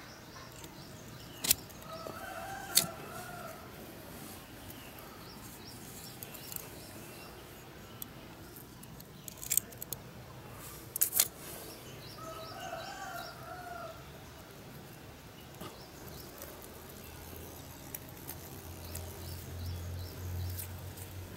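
Pruning shears snipping off side shoots from a grafted seedling: a few sharp clicks, in two pairs. A rooster crows twice, and a low engine hum rises near the end.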